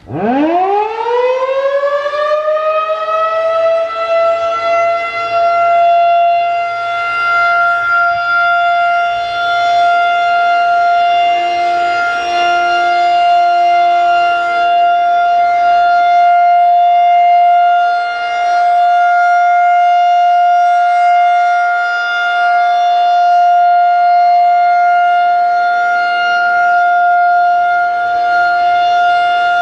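Federal Signal 2001-130 rotating single-tone electromechanical tornado siren winding up from a standstill, its pitch rising quickly over the first few seconds. It then holds one steady tone for the full-alert signal, its loudness swelling and dipping slightly.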